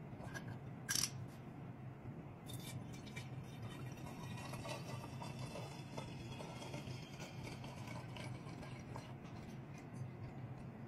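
A sharp click about a second in, then liquid laundry sanitizer pouring in a stream from a plastic bottle into a glass jug.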